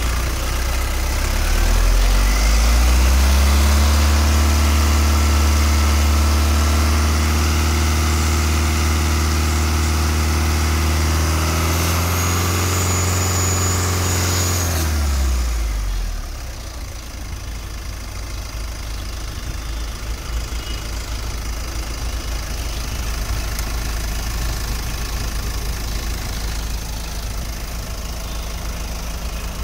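Mahindra Xylo mDICOR diesel engine idling, then revved up at about two seconds and held at raised speed for about twelve seconds, with a high whistle near the end of the rev. It is then released back to a steady idle. The owner judges it sound, with permissible blow-by.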